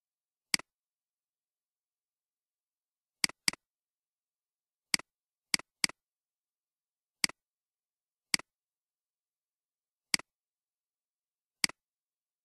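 Computer mouse clicking, ten sharp clicks at uneven intervals, each a quick press-and-release double tick, with two close together about three seconds in and a run of three around five to six seconds.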